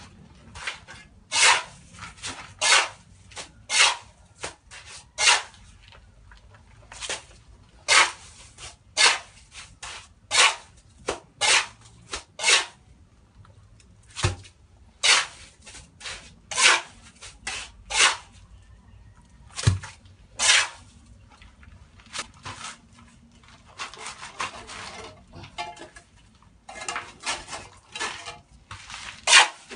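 Mason's trowel scraping cement mortar on concrete hollow blocks: a run of short, sharp scrapes about one a second, with a couple of dull knocks in the middle, then closer, rougher scraping near the end.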